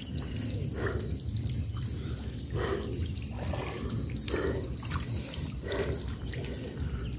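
Small fish splashing and wriggling in shallow water trapped behind a net, with faint trickles and drips. A fast, even chirping of insects runs over a steady low rumble.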